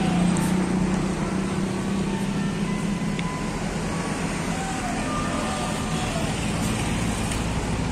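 Diesel engine of a Mercedes-Benz coach running as the bus moves slowly across the yard, a steady low hum.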